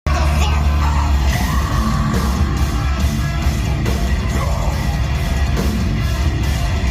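Loud live heavy metal band playing, with a singer yelling over dense guitars, bass and drums.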